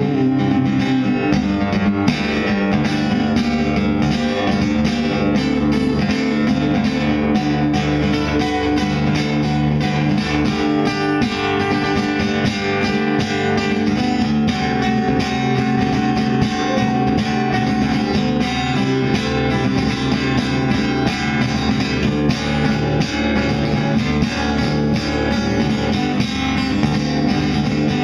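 Solo acoustic guitar playing an instrumental passage, steady, rhythmic picking over a running bass line, with no singing.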